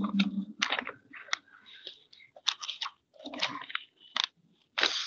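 Irregular crunching and crackling noises close to a microphone: a string of short, sharp bursts at uneven spacing.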